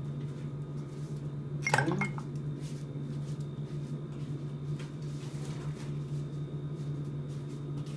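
An ice cube dropped into a glass mixing glass holding the cocktail, one sharp clink with a short ring about two seconds in, over a steady low hum.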